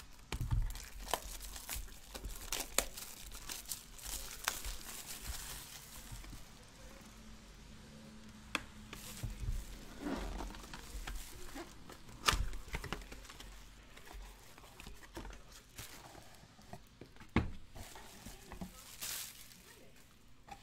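Plastic shrink wrap being torn and peeled off a cardboard box, crinkling and crackling unevenly, with a few louder knocks as the box is handled on the table.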